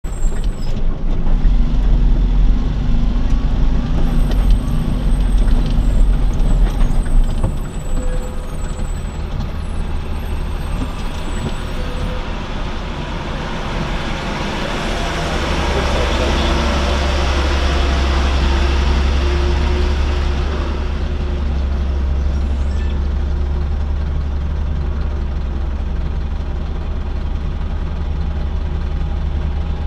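Engine and road rumble heard from inside a vehicle, loudest for the first seven or so seconds, then easing to a steady low engine hum. In the middle a decorated Pakistani cargo truck passes close alongside, a rushing swell that builds and fades over several seconds.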